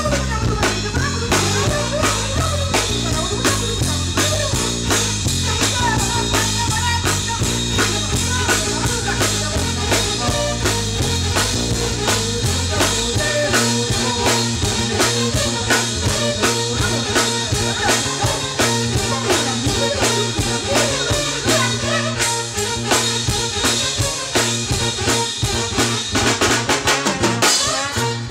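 A live jazz band playing, with a drum kit beating busily throughout under a bass line that steps from note to note, then settles into a steadier low line about halfway through.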